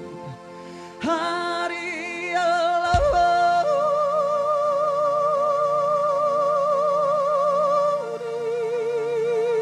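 A woman singing long held notes with vibrato over sustained keyboard chords. One note is held from about three seconds in to about eight seconds in, then the melody steps down to a lower held note.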